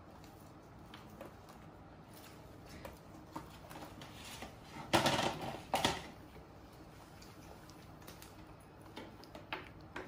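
Scattered light clicks and taps, then two louder scraping knocks close together about five seconds in: a baby macaque clambering about on a plastic chair. A few soft clicks follow near the end.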